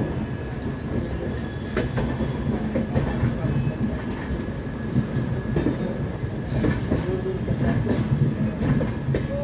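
Indian Railways passenger train rolling slowly out of a station: a steady low rumble from the coaches with irregular clacks as the wheels run over rail joints and points while the train changes tracks.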